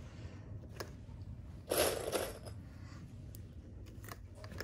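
Small plastic sewing clips clicking as they are snapped onto layered fabric and a zipper, a few separate clicks, with a short rustle of fabric being handled about two seconds in.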